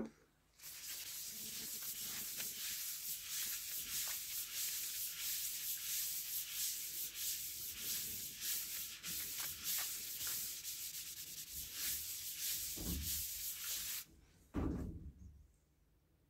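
Cloth and hand rubbing the Danish-oiled surface of a red-dyed monkey puzzle wood vase as it spins on a lathe, making a steady hiss. The rubbing stops near the end, with two low thumps.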